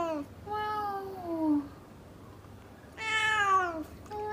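Tabby cat meowing repeatedly: long meows that each slide down in pitch, one trailing off at the start, one broken in two around a second in, one about three seconds in, and another starting right at the end.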